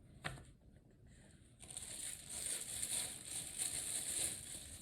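A short click, then about three seconds of packaging crinkling and rustling as kit items are unpacked.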